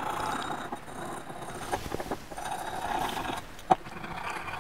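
Hand deburring of a small machined metal part: uneven stretches of metal scraping, with one sharp click near the end.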